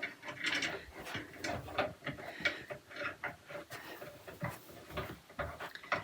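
Screws being turned in with a hand tool while a flat-pack storage rack is assembled: a run of small, irregular clicks and ticks.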